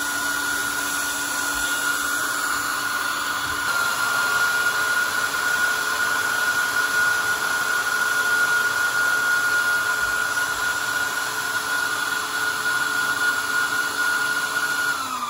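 A 20-watt, 12-volt fan inside a small 3D-printed hand dryer running at full speed: a steady rush of air with a high whine. It gets a little louder about four seconds in, and near the end the whine starts to fall as the fan spins down.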